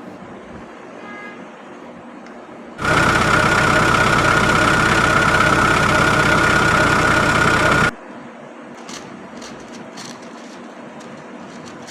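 Electronic engine sound effect from a toy vehicle, switching on abruptly about three seconds in, running steadily and cutting off sharply about five seconds later. A few light clicks follow.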